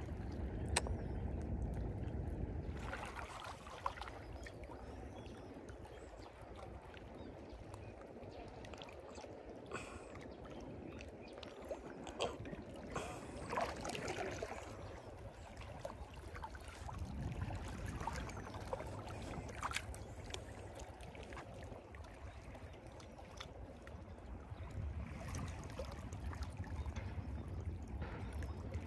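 Shallow seawater lapping and trickling among shoreline rocks, over a steady low rumble, with scattered light knocks.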